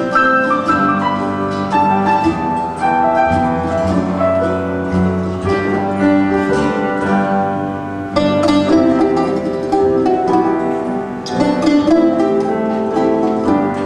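Live instrumental waltz played on steel-string acoustic guitar, with another instrument accompanying.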